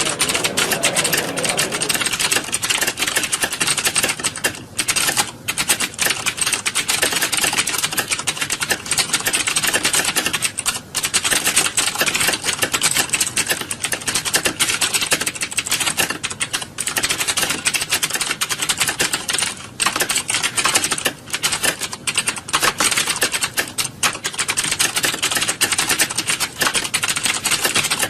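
Many computer keyboards being typed on at once, a dense continuous clatter of key clicks as in a room full of candidates sitting a typing test.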